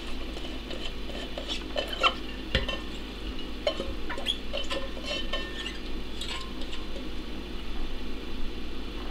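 Squeezed bitter gourd pieces being moved by hand from an enamel pot onto a glass plate: scattered, irregular light clinks and taps of the enamel pot and glass plate.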